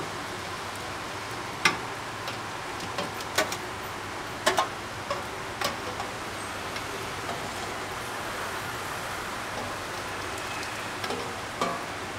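A long stainless steel ladle scraping and clinking against the inside of a small stainless pot as sauce is scraped out into a stockpot, giving about ten sharp metal clinks in the first six seconds and again near the end, over a steady hiss.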